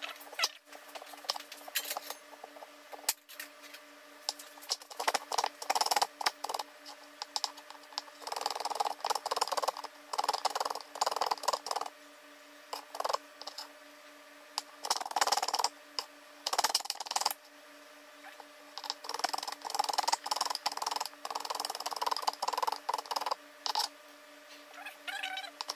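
Large kitchen knife slicing lemon peel on a cutting board: runs of quick chopping taps with short pauses between them. The lemon peel is being cut thin.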